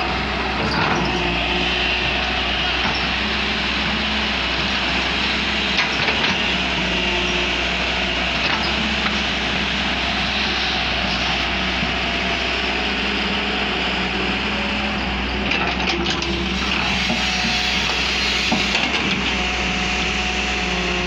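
JCB tracked excavator's diesel engine running steadily under hydraulic load as the bucket moves soil, with a few short knocks scattered through.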